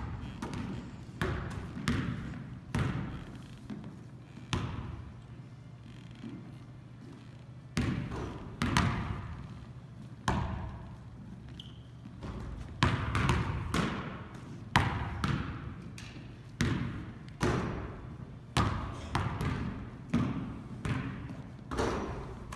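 Basketballs bouncing on a hardwood gym floor: irregular thuds, each echoing in the hall, with a quieter lull of a few seconds early on before the bounces pick up again.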